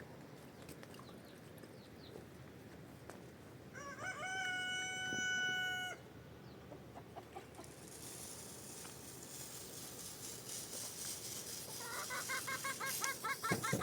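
A rooster crows once, a single long call about four seconds in. Near the end, chickens start clucking rapidly.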